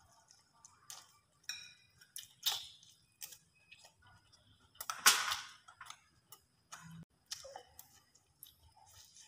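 A metal spoon clicking and scraping in a ceramic rice bowl, mixed with chewing and lip sounds of eating. The loudest, longest scrape comes about five seconds in.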